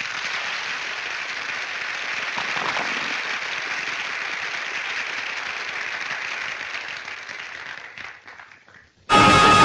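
An audience applauding: steady, dense clapping that fades away near the end. Orchestral music cuts in just before the end.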